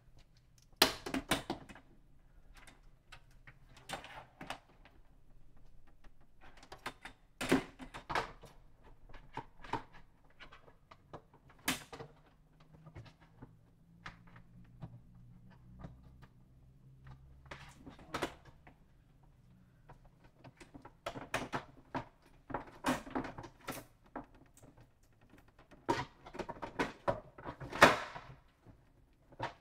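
Irregular knocks, clicks and rustling as an Epson L3250 inkjet printer's plastic casing and power cable are handled and shifted about, with the sharpest knocks about a second in and near the end.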